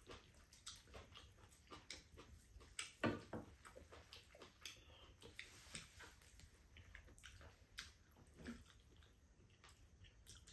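Faint eating sounds at the table: chopsticks clicking against the pan and bowls, and chewing of glass noodles, with a louder mouth sound about three seconds in.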